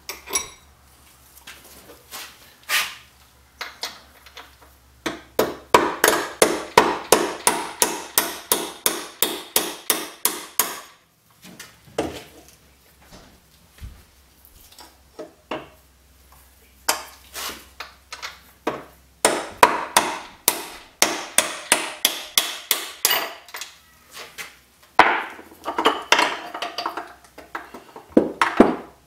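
Soft-faced hammer tapping the front crankshaft of a 1956 Ariel Square Four engine to drive the crankcase halves apart. A few single taps, then three runs of quick, even taps at about three a second.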